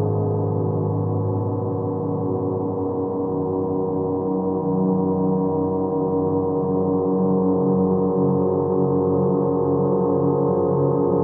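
Ambient background music of long, held ringing tones, with the lower notes changing about four seconds in.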